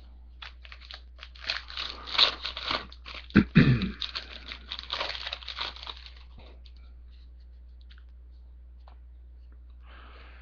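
A foil trading-card pack wrapper being torn open and crinkled: a run of crackling and rustling for about six seconds, then only a faint low steady hum.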